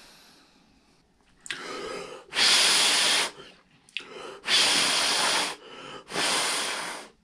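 A man blowing three hard breaths onto freshly melted plastic welded onto an RC truck body, to cool the weld so it sets and stays stuck down. Softer breaths come between the blows.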